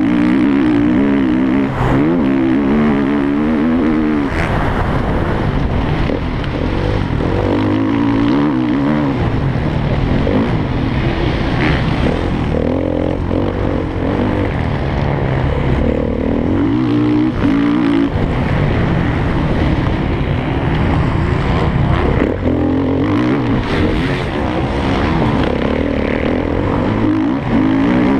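Motocross bike engine running hard under race conditions, its pitch repeatedly climbing and then dropping as the throttle is opened and shut and gears are changed.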